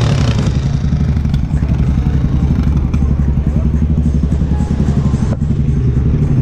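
A 1992 Harley-Davidson FXRP's 1340cc Evolution V-twin running steadily at low speed, with a fast, even low pulse.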